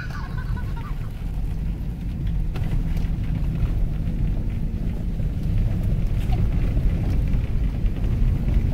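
Second-generation Cadillac Escalade driving over a wet gravel road, heard from inside the cabin: a steady low rumble of engine and tyres, with a few faint ticks of stones.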